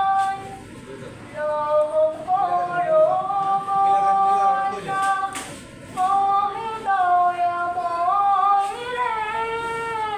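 A teenage girl singing a naat, an Islamic devotional song in praise of the Prophet, solo, holding long notes and gliding up and down between them.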